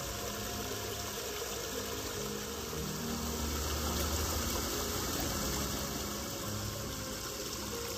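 Shallow woodland stream running over a stony, leaf-strewn bed, a steady rushing and rippling of water, with low held tones beneath it.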